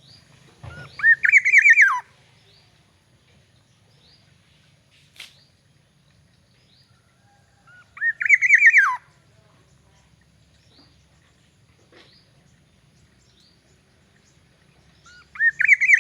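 Black-naped oriole (kepodang emas) calling three times, about seven seconds apart. Each phrase is a quick run of rising, whistled notes that drops away in pitch at the end. Faint short chirps and a single sharp click come between the phrases.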